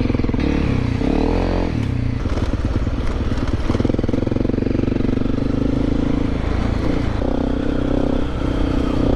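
Honda CRF250L Rally's 250 cc single-cylinder engine running under way on a dirt forest road, its note rising and falling with the throttle.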